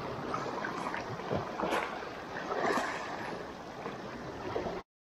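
Small waves lapping and splashing against shoreline rocks, with a few brief splashes and wind on the microphone. It cuts off suddenly near the end.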